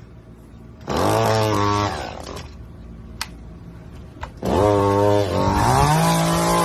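Milwaukee M18 Hatchet battery pruning saw spinning up with a quickly rising whine, running for about a second and winding down. About four and a half seconds in it spins up again and runs steadily as it cuts into a log, and a second steady motor tone joins near the end.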